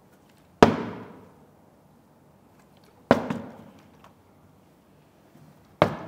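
A plastic water bottle banging down on a cloth-covered table three times, sharp thuds each with a short ringing echo, about a second in, near the middle and near the end.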